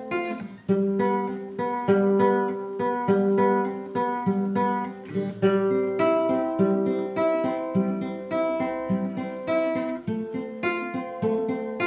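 Acoustic guitar strummed in a steady rhythm, moving through a run of chords.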